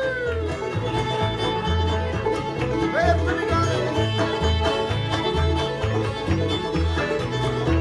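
Old-time string band playing an instrumental passage: fiddle lead over banjo, mandolin and guitar, with an upright bass keeping a steady beat of about two notes a second. A fiddle note slides up about three seconds in.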